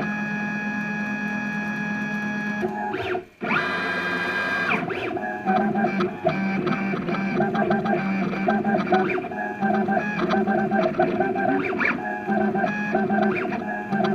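Stepper motors of a home-built CNC router whining as the machine moves the engraving tool. After a short break about three seconds in and a brief rising whine, the pitch changes in quick stop-start steps as the tool traces out letters.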